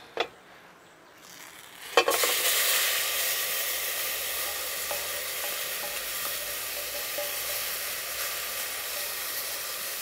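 Tomato, onion and courgette mixture sizzling as it is tipped from a frying pan into a hot aluminium pot on a gas burner. A sudden hiss about two seconds in settles into a steady sizzle, with a few small scraping ticks.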